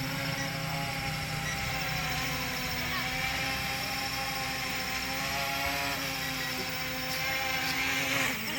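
Small GPS quadcopter drone's motors and propellers humming steadily in flight, the pitch wavering slightly. Near the end the pitch dips and then wobbles as the throttle changes.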